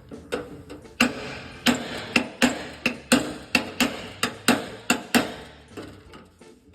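Hammer blows on the steel sheet metal of a 1955 Chevy front fender, knocking out a small dent: a quick run of about a dozen sharp, ringing metal taps, two to three a second, starting about a second in and stopping near the fifth second.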